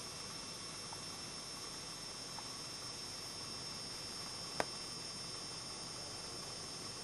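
Steady faint hiss with a thin high whine, the recording equipment's own background noise, with one sharp click about four and a half seconds in and a couple of faint ticks before it.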